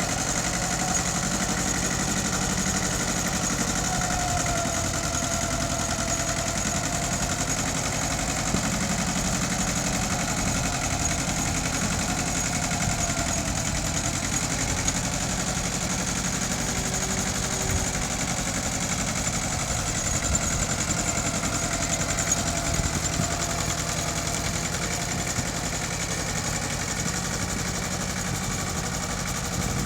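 Mitsubishi tractor engine running steadily while ploughing, at an even pitch throughout.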